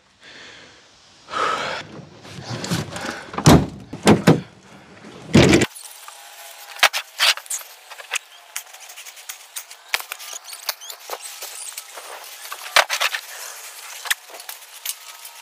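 Heavy sawn log rounds thudding into a pickup truck bed as they are loaded, several separate knocks in the first five seconds. After that come lighter, scattered knocks as rounds are handled in the truck bed.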